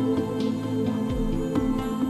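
Calm new-age background music with held, sustained notes and a few soft note onsets.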